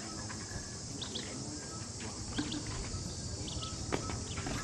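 Outdoor ambience: a steady high-pitched insect drone, with scattered short high chirps and a faint click about four seconds in.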